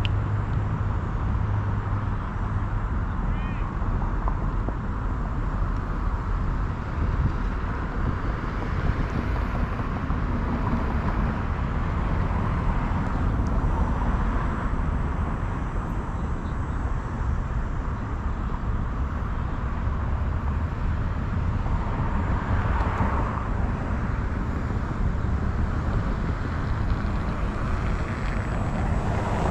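Steady wind rush and rolling noise of a moving bicycle, with a strong low rumble of wind on the microphone.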